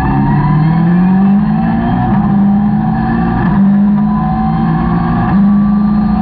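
Caterham 620R's supercharged 2.0-litre four-cylinder engine pulling hard on track, its pitch climbing and then dropping back at quick paddle-shifted gear changes, with wind noise in the open cockpit.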